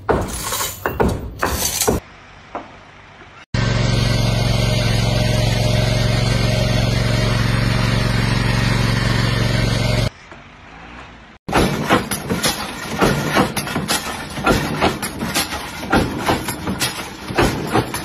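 A steady motor drone for about six seconds, cutting off suddenly. A few seconds later comes a dense, irregular run of metal clanks and knocks from a coal briquette press stamping briquettes.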